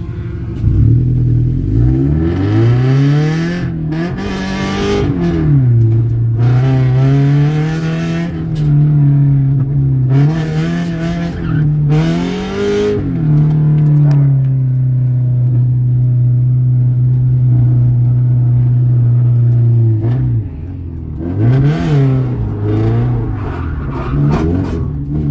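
Subaru BRZ's flat-four boxer engine revving up and down under driving, loud through an exhaust with a hole in it. The revs hold steady for several seconds mid-way, then dip and climb again near the end, with short bursts of hissy noise over the engine.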